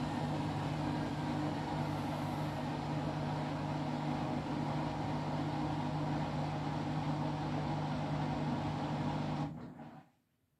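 Washing machine in its final high-speed spin, running heavily out of balance with a steady hum and motor whine. The sound cuts off sharply near the end.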